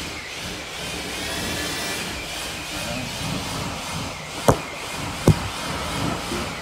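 A steady mechanical whirring, like a motor or blower running, with two sharp knocks close together past the middle.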